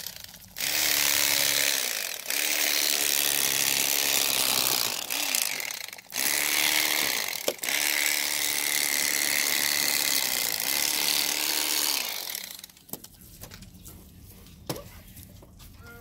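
Electric fillet knife running in several bursts of a few seconds each, its reciprocating serrated blades buzzing as they saw through a walleye, then switched off about twelve seconds in.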